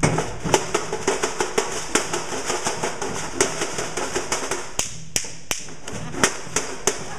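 Gunfire sound effect for a stage play: a rapid, uneven string of sharp cracks and bangs, several a second, over a steady noisy background.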